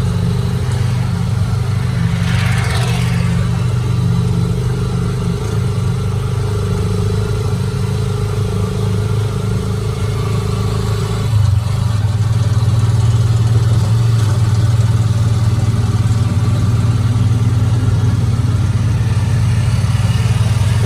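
A motor vehicle's engine running steadily with a strong low hum, getting a little louder about eleven seconds in. A brief rushing sound falls in pitch about two seconds in.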